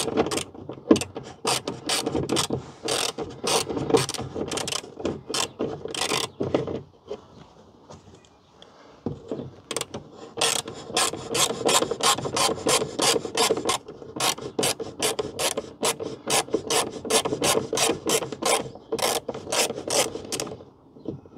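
Ratchet wrench clicking in quick repeated strokes, about three a second, with a pause of a couple of seconds partway through, as the bolts clamping the car's window glass are undone inside the door.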